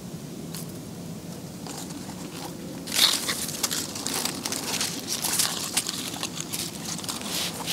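A long strip of deer rawhide crackling and crinkling as it is handled and gathered into a coil by hand, starting about three seconds in, over a steady low background noise.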